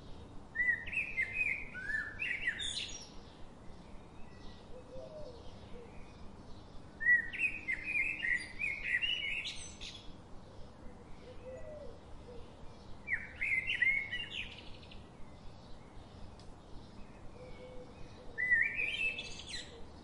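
A songbird singing a fast warbled song phrase four times, each about two to three seconds long and ending in higher, rising notes, with pauses of a few seconds between.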